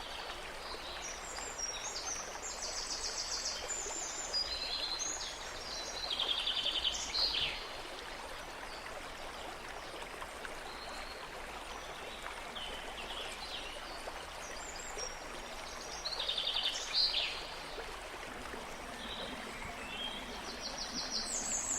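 Steady hiss of running water, with small birds trilling and chirping high above it in bursts, most prominently about six to seven seconds in and again around sixteen to seventeen seconds.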